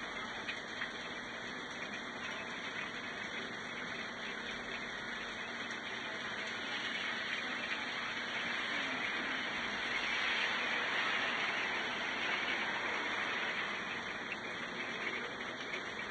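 Steady rain falling, a continuous hiss. The hiss swells for a few seconds around the middle as a car drives past on the wet road.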